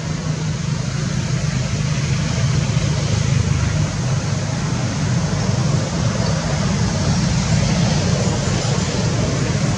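Steady rumbling background noise with no distinct events.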